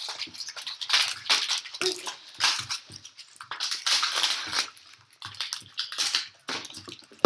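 Plastic packaging crinkling and rustling in irregular bursts as kinetic foam tubs are handled and their plastic seals worked open.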